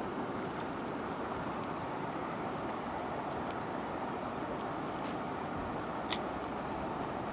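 Steady rushing outdoor background noise, with one sharp click about six seconds in.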